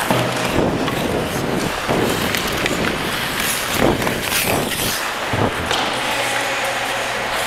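Hockey play: skates scraping and a handful of sharp stick-and-puck clacks, over a steady low hum.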